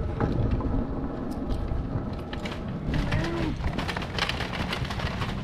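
Small wheels of a loaded hand truck and a kick scooter rolling over concrete and tile paving: a steady low rumble with scattered rattles and clicks from the frame and wheels.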